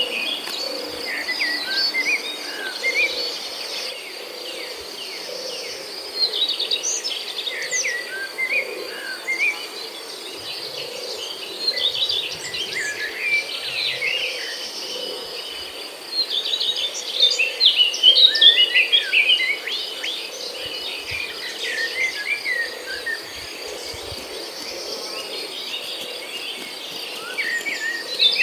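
Many small birds chirping and twittering in quick, overlapping calls, over a steady high insect trill. The chirping grows louder in bursts about halfway through.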